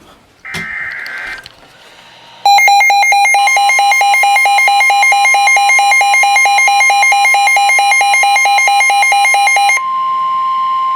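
NOAA Weather Radio alert: the end of a screeching SAME digital header burst, then about two and a half seconds in a weather radio receiver's rapid, harsh pulsing alarm beep starts along with the steady 1050 Hz warning alarm tone. The pulsing beep stops near the end and the single steady tone carries on. This is the alert signal that comes before a broadcast warning.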